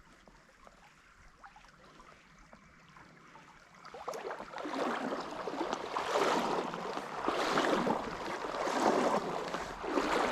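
Footsteps wading through a shallow, gravel-bottomed trout stream: faint at first, then from about four seconds in a sloshing splash with each stride, about one every second and a half.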